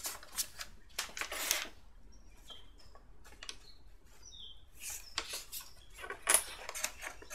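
Paper pattern and redwood pieces being handled and shifted on a workbench: scattered rustles and light knocks, with a few faint short high chirps in between.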